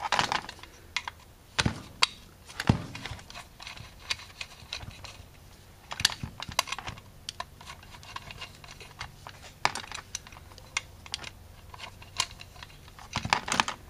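Irregular small clicks and taps of hands handling and working small metal parts on an aluminum Autolite 4100 carburetor body, with a few louder knocks among them.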